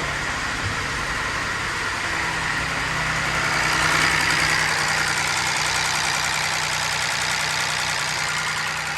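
Ford Ka 1.0 three-cylinder engine running at idle with a loud mechanical noise, getting a little louder a few seconds in. This is the engine noise that comes with its oil warning light lighting up.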